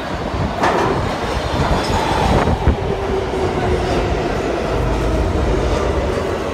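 Kawasaki R143 subway train pulling into the station and slowing, with a steady rumble and rush of steel wheels on rail. Over it the train's traction-motor whine falls slowly in pitch as it decelerates. A couple of sharp clacks from the rail joints come in the first few seconds.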